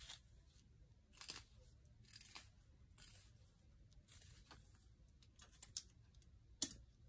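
Quiet short rustling strokes of a comb being drawn through wig hair, about half a dozen, with a sharp click near the end.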